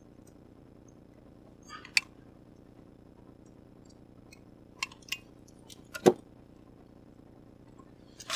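Scattered clicks and knocks as a landed walleye is unhooked and handled in the boat, the loudest a thump about six seconds in, over a faint steady hum.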